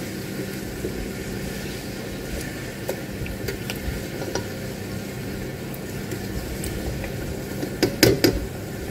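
Pork steak simmering in sauce and water in an electric multi-cooker, a steady boiling noise with a low hum underneath. A spoon clicks and scrapes against the pot now and then, with a few louder knocks about eight seconds in.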